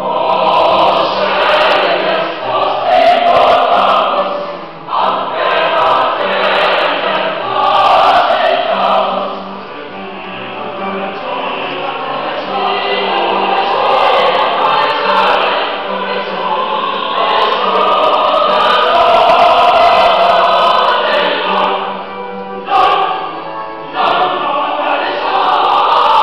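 Mixed choir of women's and men's voices singing a Latin sacred choral piece, the voices entering together at the start. The sound swells and eases phrase by phrase, with a brief break about three seconds before the end.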